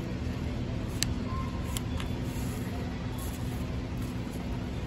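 Sheet of paper being folded and creased, giving a couple of sharp crackles over a steady low rumble with a faint hum.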